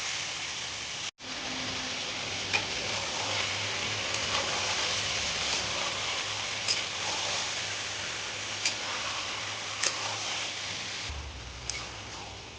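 Onions sizzling steadily as they fry in hot oil in a pan, with a few sharp clicks now and then. The sound cuts out for an instant about a second in.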